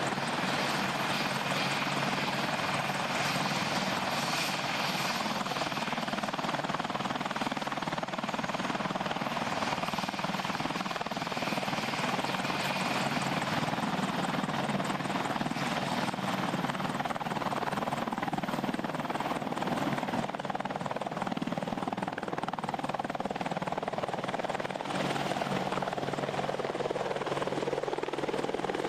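AH-64 Apache attack helicopters running at close range: the steady noise of the twin-turboshaft engines and rotors, with the pitch shifting in the last few seconds as one flies low and close.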